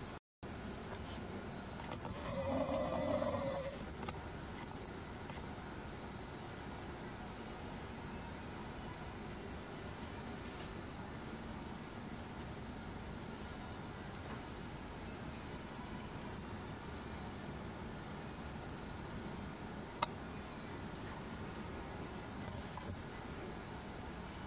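Outdoor night ambience with a steady high-pitched insect trill that pulses every couple of seconds. About two seconds in, a louder, lower sound rises for a second or two, and a single sharp click comes near the end.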